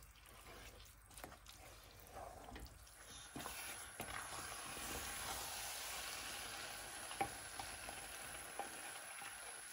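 Tomato stew base for jollof rice sizzling and spitting in a pot as a wooden spoon stirs raw washed rice through it, with scrapes and knocks of the spoon. The sizzling grows steadier about three seconds in.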